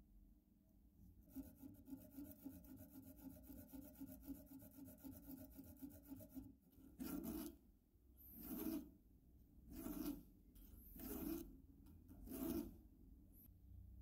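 A hand file rasping on a small metal key blank in five slow, separate strokes during the second half. Before that comes about five seconds of a faster, buzzing scrape.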